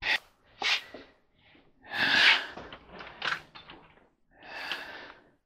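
A tired man breathing hard in a run of short puffs and gasps, the longest and loudest about two seconds in, as he moves about and sits down on a chair.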